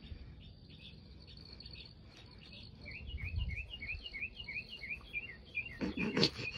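Crickets trilling steadily in the night air. A quick run of repeated chirps, about four a second, comes in the middle for about two seconds. A short louder noise follows about six seconds in.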